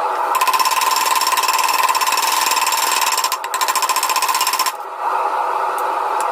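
Power hammer striking in a very fast continuous run for about four seconds, with a short break partway through, over a steady machine drone.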